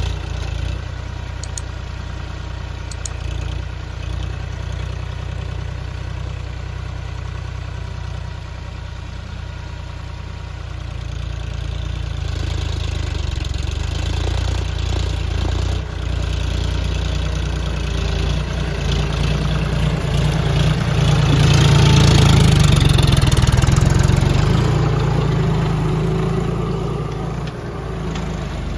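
A John Deere tractor's diesel engine runs steadily under load while pulling a tine cultivator through the soil. It grows louder about two-thirds of the way through as the tractor comes close, then eases off.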